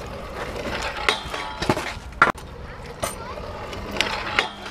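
Trick kick scooter rolling on skatepark asphalt, with several sharp clacks as the deck hits and slides along a flat rail in a boardslide. The loudest clack comes about two seconds in.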